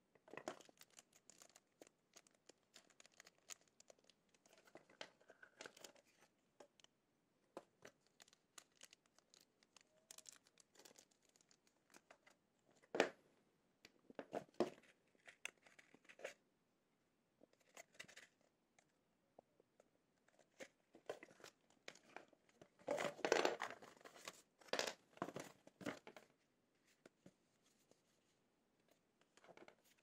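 Cardboard box and paper inserts rustling and scraping as they are handled, in short irregular bursts, loudest about halfway through and again about three-quarters of the way in.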